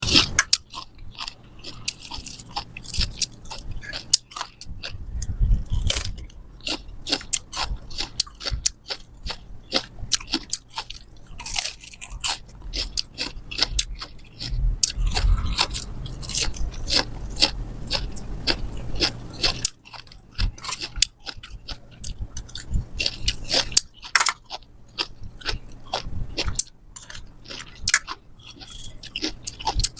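Close-up crunching and chewing of pickled chicken and duck feet: many sharp, irregular crunches as bites break through skin and cartilage, with wet chewing in between.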